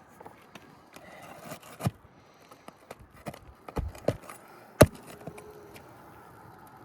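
Asphalt roof shingles being pried up and handled: scraping with a string of sharp snaps and knocks, the loudest near the middle.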